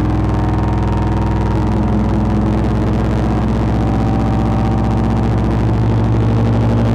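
Metasonix Wretch Machine vacuum-tube synthesizer playing a loud, distorted drone through a spring reverb module, a dense stack of steady low tones. Its upper tones shift in pitch partway through as a knob is turned.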